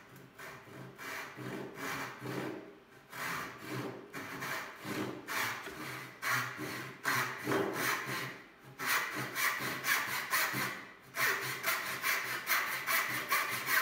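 A brass-backed Lie-Nielsen tenon saw rip-cutting a tenon cheek, stroke after stroke. The strokes start soft and build within a few seconds to a quick, steady rhythm.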